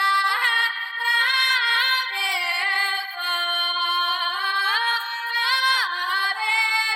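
Music: a woman singing a slow melody in long held notes that slide between pitches.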